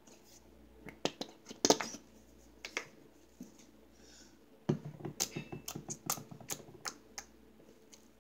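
Blue slime being kneaded by hand with baby lotion, giving a quick run of wet clicks and pops from about halfway in. Before that come a few separate clicks as the lotion bottle is squeezed.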